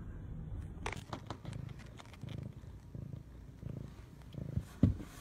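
A cat purring, low and steady, with a few light clicks about a second in and a brief louder low sound near the end.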